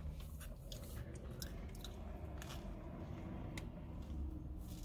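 Faint sipping of lemonade through a plastic straw, with a few small mouth and straw clicks, over a low steady hum.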